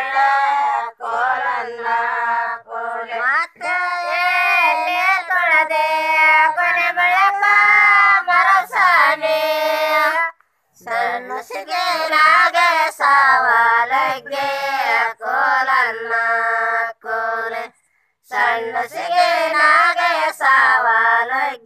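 Women singing a Kannada Gowri festival folk song, voices only with no instruments, in long held and gliding phrases. The singing breaks off briefly twice, about ten seconds in and again near the end.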